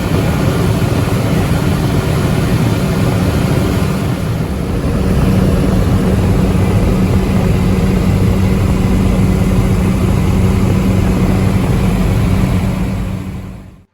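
Skydiving jump plane's propeller engine droning steadily in the cabin during the climb, with rushing air noise. It fades out near the end.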